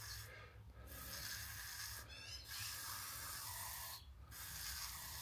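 Handheld pump pressure sprayer spraying water onto a windshield corner: a faint steady hiss with three brief breaks, about half a second, two seconds and four seconds in. It is a water test to find where rain leaks into the cab.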